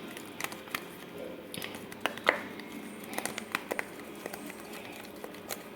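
Glue-and-starch slime being stirred in a bowl: soft, irregular sticky clicks and squishes.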